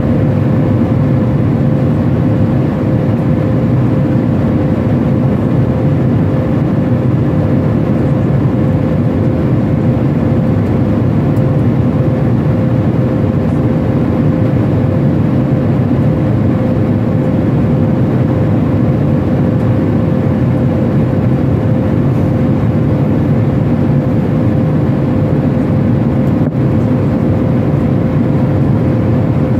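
Airliner cabin noise in cruise flight: a steady, loud rush of engines and airflow with a constant hum running through it.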